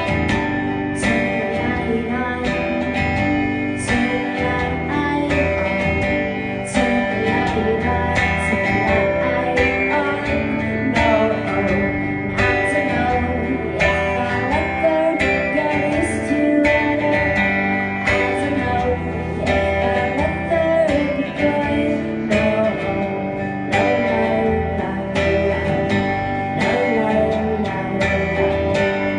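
Live country band playing, with strummed acoustic guitar over a steady beat; the music comes in at full volume right at the start.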